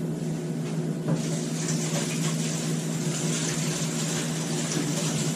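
Water running from a tap: an even hiss that starts about a second in, over a steady low hum.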